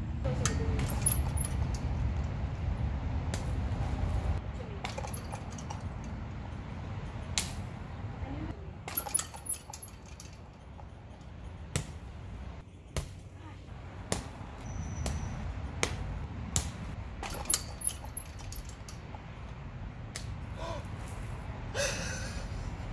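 Outdoor background noise: a low rumble, strongest in the first few seconds, with scattered sharp clicks and a few short high chirps.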